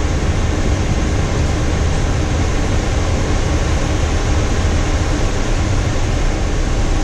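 Steady cockpit noise of a Boeing 737-800 with its CFM56 engines running: an even low rumble under a broad airflow hiss, holding level throughout.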